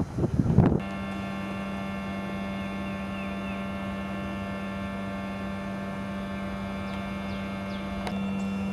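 Steady electrical hum with a strong low tone and many evenly spaced overtones. It starts abruptly under a second in, cutting off a short burst of wind noise on the microphone, and a few faint chirps sound over it.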